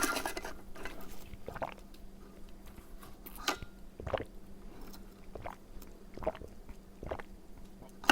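Close-miked chewing: wet, squishy mouth smacks, roughly one a second, over a faint steady hum.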